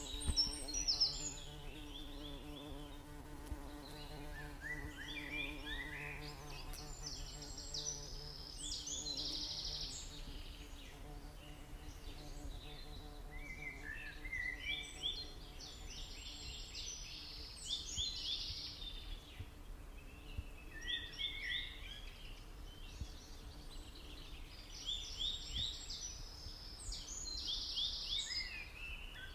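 Birds singing outdoors: short bursts of quick, high chirping phrases that repeat every few seconds. A faint steady low hum sits underneath for roughly the first nine seconds.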